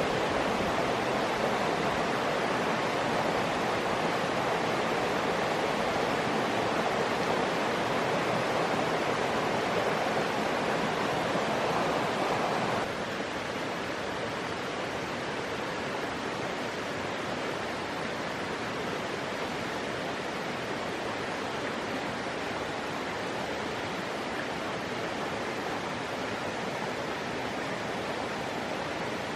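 Forest stream rushing steadily over rocks, a constant roar of running water; about halfway through it suddenly becomes a little quieter.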